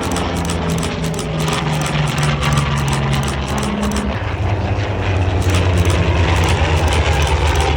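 Aircraft engines running close by: a loud, steady drone with low tones that shift lower about four seconds in.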